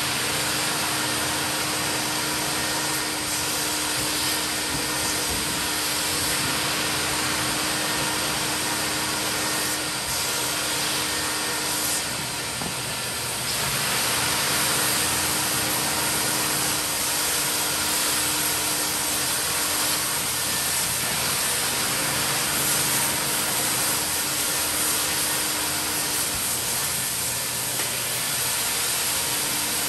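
Mytee Lite 8070 carpet extractor running, a steady vacuum-motor rush with a constant hum, its wand extracting from carpet floor mats; the sound dips briefly about twelve seconds in.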